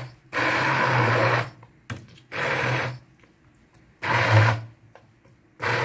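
Hand-held immersion blender grinding thick cooked wheat and mutton in a pot, run in short pulses of about a second, starting and stopping five times.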